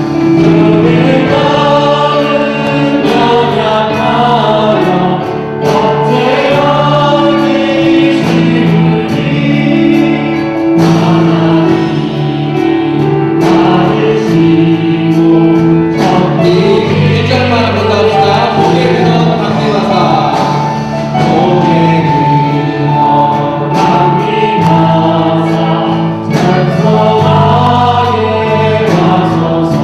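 Church choir singing a gospel hymn, with sustained chords and long held notes.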